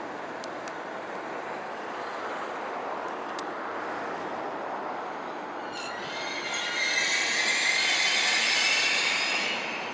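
A train of DL class diesel locomotives running on rails: a steady rushing noise, then about six seconds in a high, ringing metallic squeal of wheels on rail swells up and dies away just before the end.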